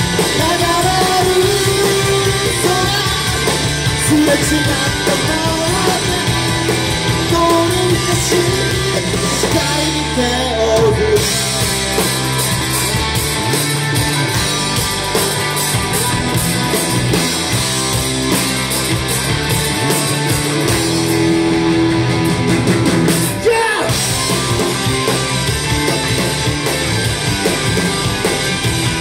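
Live rock band playing loudly and steadily: two electric guitars, electric bass and a drum kit.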